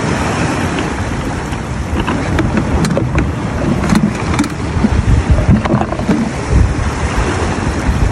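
Wind buffeting the microphone over the wash of ocean waves: a loud, uneven low rumble. Scattered clicks and rustles come from a fish being handled in a plastic bag.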